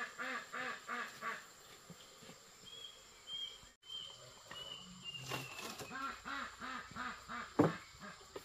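Duck quacking in quick runs of about four quacks a second, once at the start and again in the second half, with a sharp knock about seven and a half seconds in.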